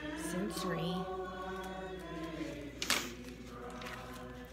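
Hymn singing from a church service: several voices holding long, slow notes. About three seconds in comes one sharp rustle, a page of a spiral-bound communication book being turned.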